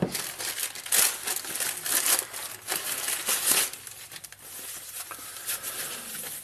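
Plastic courier mailer bag being torn open by hand, crinkling and tearing in sharp bursts through the first few seconds, then softer rustling as the packing wrap inside is handled.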